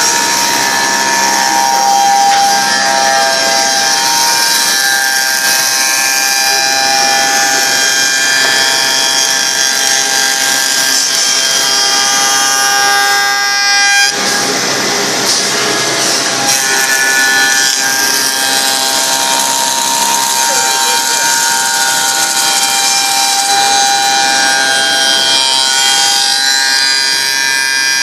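Automatic wood copy shaper (MX7216 series) milling wood: its cutter spindles whine steadily as they cut, with several tones shifting as the cut goes on. The sound changes suddenly about halfway through, then carries on.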